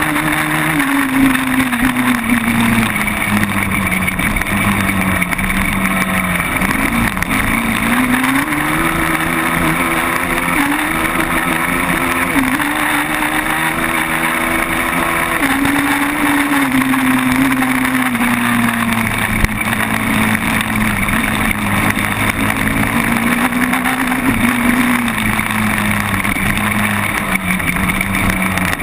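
Quad bike engine running as it is ridden, its pitch rising and falling again and again as the throttle is opened and eased off.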